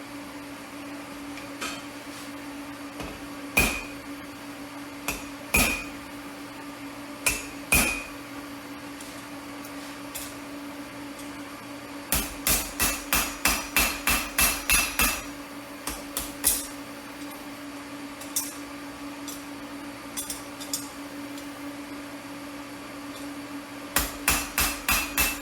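Hand hammer striking steel on an anvil, each blow ringing. A few single blows a couple of seconds apart come first, then a quick run of blows at about four a second, and another fast run near the end, over a steady hum.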